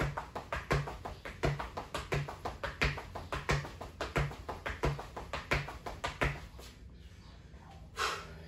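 Quick, regular footsteps of shoes tapping a hard floor in a fast forward-and-back stepping drill, about three steps a second, stopping about six seconds in. A sharp breath near the end.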